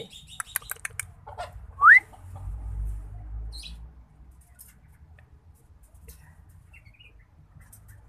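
Young scops owl giving one short, loud rising whistle-like call about two seconds in, after a run of quick clicks; a few faint chirps follow near the end.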